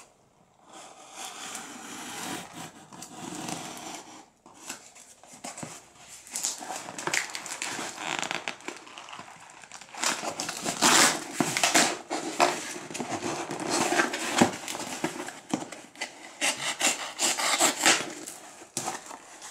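Cardboard shipping box being cut and torn open: a small knife slitting packing tape and cardboard, with irregular scraping, rasping and tearing strokes that grow louder from about ten seconds in.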